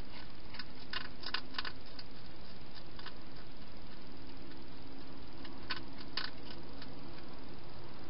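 Hedgehog crunching dry food from a bowl, a handful of sharp crunching clicks in two short clusters over a steady hiss from the camera's microphone.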